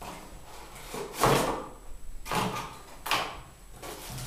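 Hand rummaging inside a cardboard camera box, cardboard and packaging scraping and rustling in a few short scrapes, the loudest just over a second in.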